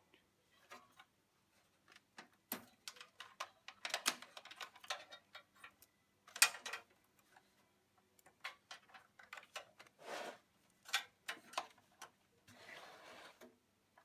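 Faint, irregular clicks and clatters of SATA data and power cable connectors being worked loose and cables handled inside a steel desktop PC case, with a short rustling scrape near the end.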